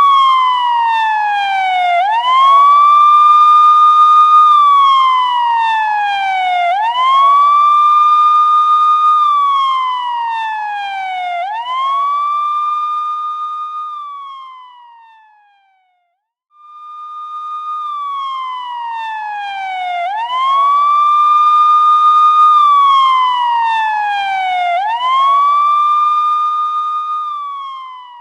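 Police siren wailing: each cycle rises quickly, holds high, then slides down over about two seconds, repeating every four to five seconds. About halfway through it fades away and cuts out for a moment, then starts again.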